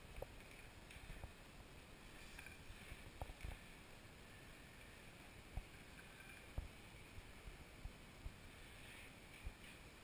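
Faint swish of a flat microfibre mop sliding over wooden floorboards, with scattered light knocks and taps every second or so.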